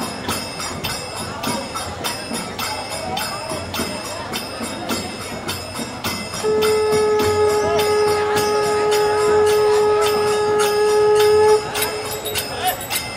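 Bells ringing in a steady rhythm, about three strikes a second. From about halfway a single long steady note joins in, held for about five seconds before it cuts off.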